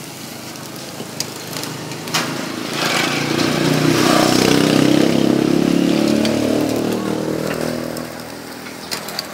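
A motor vehicle's engine passes by: it swells from about three seconds in, is loudest in the middle and fades away near the end. Underneath is the sizzle of meat on a street grill, with a sharp metal click about two seconds in.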